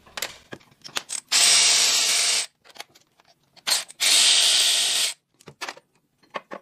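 Cordless electric ratchet running twice, about a second each, to spin out the two 14 mm bolts holding the clutch slave cylinder on top of a manual transmission. Short clicks and knocks of the socket and tool are heard between and after the runs.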